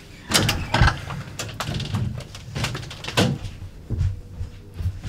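Several knocks and thumps as people move about and handle things in a small room; the sharpest knocks come just under a second in and again a little after three seconds.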